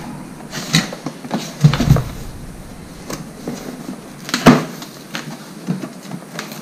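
Cardboard boxes being handled and a small box's flaps pulled open: rustling and scraping cardboard with several knocks, the heaviest thumps near two seconds in and the sharpest knock about four and a half seconds in.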